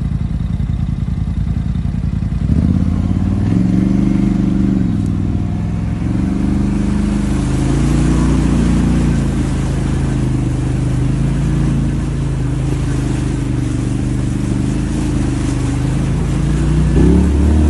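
Quad bike engine running as it is ridden, its pitch rising and falling as the throttle is opened and eased off. Around the middle, the wheels add a splashing hiss going through water.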